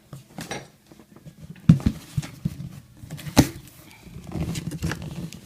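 A cardboard shipping box being handled and opened: sharp knocks and scrapes, the loudest about one and a half seconds in and again at about three and a half seconds, then a stretch of rustling packaging.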